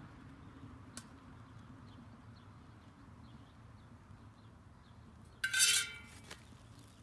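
A brief, loud metallic clatter with a ringing edge about five and a half seconds in: a metal utensil striking the stainless steel cooking disc. A single sharp tick comes about a second in, over a faint low steady hum.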